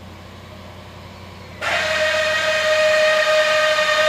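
Land Rover electronic parking brake module, whose motor drives plastic gears, giving a loud steady whine. The whine starts abruptly about a second and a half in and holds one pitch as the brake is applied. It is the noise of a faulty parking brake that does not work.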